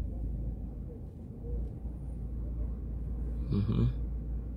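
Low, steady rumble of a car's engine and road noise heard from inside the moving car. A voice briefly breaks in about three and a half seconds in.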